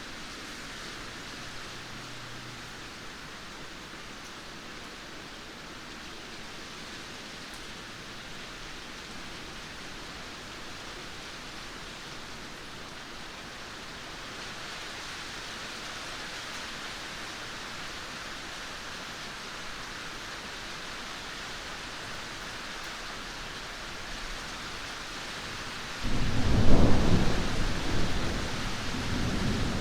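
Steady rain hiss. Near the end a sudden loud thunder rumble breaks in and keeps rolling.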